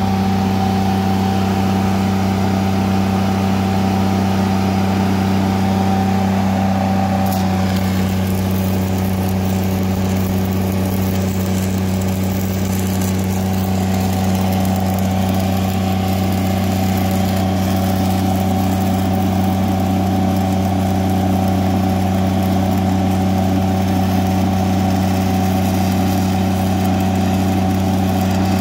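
An engine running steadily; about seven seconds in, the crackle and hiss of a stick-welding arc starts and keeps on over it, spattering sparks as the electrode burns.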